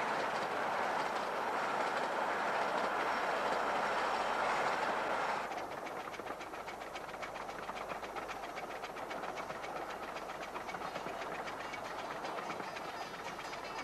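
A 15-inch-gauge miniature steam train passing close by, its coaches' wheels rushing loudly over the track. About five seconds in, the sound cuts to a quieter run at speed with a fast, even clicking beat.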